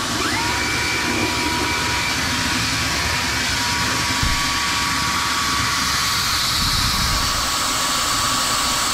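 Bosch Unlimited 7 cordless stick vacuum running at steady speed: its motor's high whine over a rush of air.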